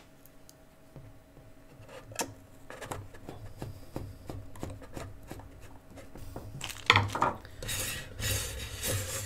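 Small screwdriver and countersunk screws working against a PC Engines APU2's aluminium case: a run of small metallic clicks and ticks, then louder scraping and clattering from about seven seconds in as the case itself is handled.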